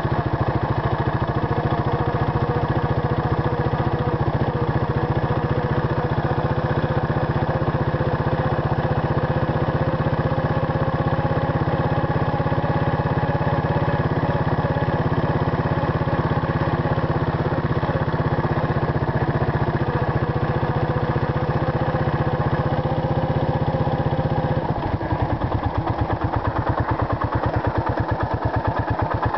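Suzuki Savage LS650's single-cylinder four-stroke engine running steadily under way. Near the end it drops to idle, its firing strokes now heard as separate, even pulses as the bike comes to a stop.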